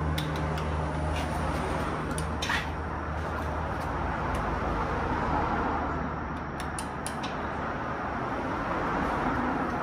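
A few light metallic clicks and taps from a wrench on bolts under a lifted car, over a steady background hiss.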